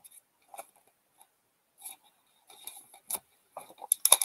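Hands handling trading cards and a foil card pack: scattered light clicks and rustles, turning into a louder run of crinkles near the end as the foil wrapper is picked up.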